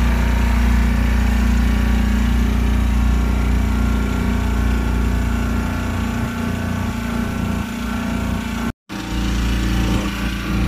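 Motorboat engine running steadily under way, with a brief gap in the sound near the end.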